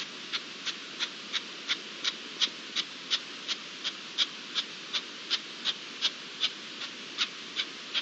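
Red-legged partridge chick peeping: short, high calls repeated evenly, nearly three a second, over a steady background hiss.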